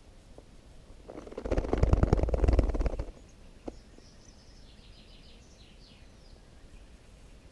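Scratchy rustling and scraping close to the microphone for about two seconds as white wagtail nestlings stir in their tree-hollow nest, followed by a few faint, high bird chirps.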